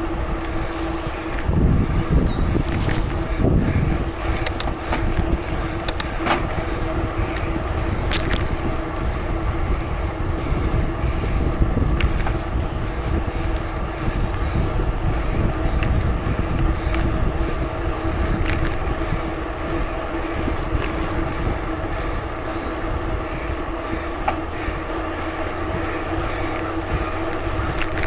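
A bicycle being ridden, heard from a phone riding along with it: a steady rumble of wind on the microphone and rolling noise, with a constant hum under it and scattered sharp clicks and rattles, most of them in the first half.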